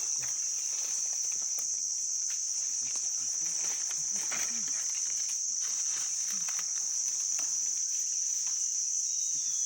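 A steady, high-pitched chorus of forest insects shrilling without a break, with faint rustles and light knocks underneath.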